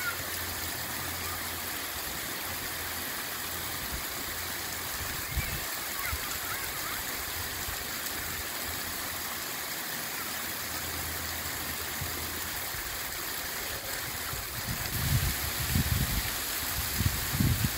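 Small waterfall splashing steadily down a granite rock face, an even rush of water. In the last few seconds, low rumbling bumps rise over it.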